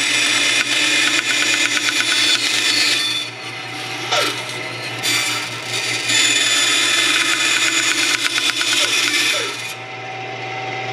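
Vertical bandsaw cutting hinge loops off a metal piano hinge: a steady motor hum under a harsh, rasping cutting noise. The cutting eases off for about a second and a half about three seconds in, resumes, and stops shortly before the end while the saw keeps running.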